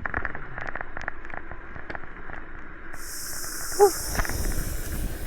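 Bicycle rattling over a rough trail, with many quick clicks and knocks from the bike and a steady hiss of tyres and wind. A short, high squeak about four seconds in is the loudest moment.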